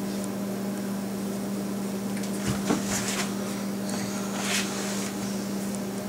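Steady hum of a running kitchen appliance, one constant low tone, with a few faint taps and rustles of hands working dough at the counter about halfway through.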